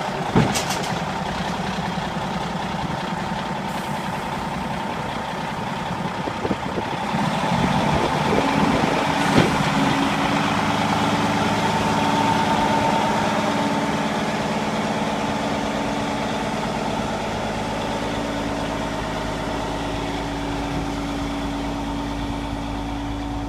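Cummins N14 inline-six diesel in a Kenworth T800 dump truck running steadily. About eight seconds in it speeds up and holds a higher, steady note while the hydraulic hoist raises the dump box, then eases off slightly near the end.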